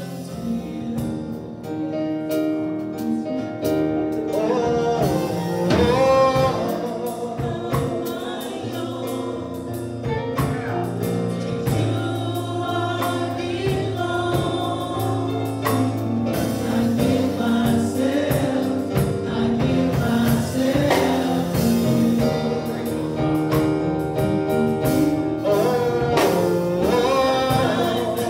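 Gospel music: a man sings into a microphone over instrumental accompaniment, with a choir of voices.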